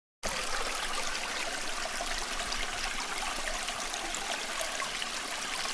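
Shallow freestone river running steadily over rocks, a constant rush of moving water that cuts in suddenly just after the start.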